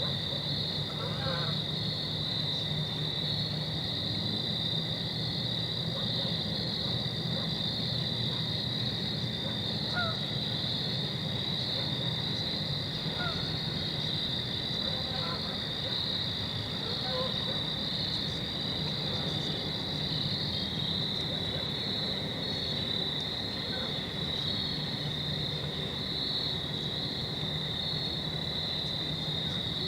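Steady chorus of insects, a continuous high trilling with a fine pulse, over a low steady hum, with a few faint short chirps here and there.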